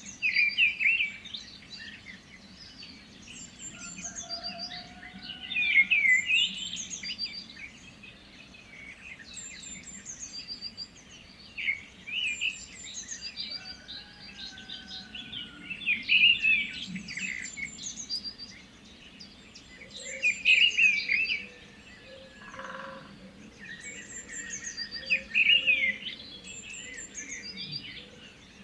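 Birds singing: loud bursts of quick, warbling song that recur about every four to five seconds, with fainter calls in between.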